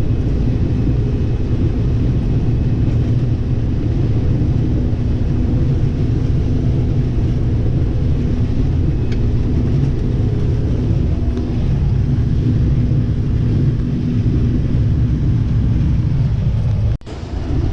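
Combine harvester running steadily while harvesting corn, a low, even drone. It cuts out briefly near the end.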